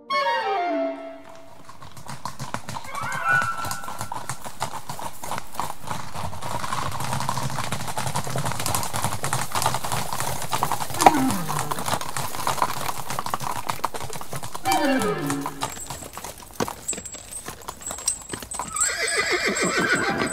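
Hooves of several horses clattering. A horse whinnies at the start and about three more times, each whinny falling in pitch. The hoofbeats swell over the first few seconds and thin out toward the end.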